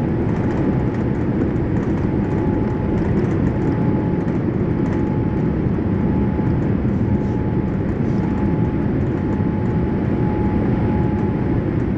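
Steady cabin noise of a Boeing 787-8 heard from a passenger seat: a low, even rumble of engine and airflow noise with a faint steady whine running through it.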